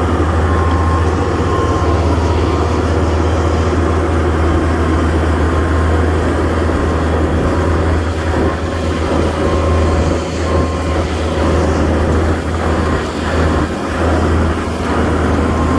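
Skid steer engine running steadily with a strong low drone, easing briefly a few times in the second half.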